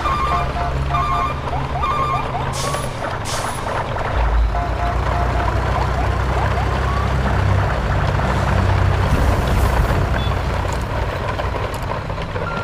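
Sound effect of a large diesel truck engine running steadily, with beeping in the first couple of seconds and two short air-brake hisses about two and a half and three seconds in.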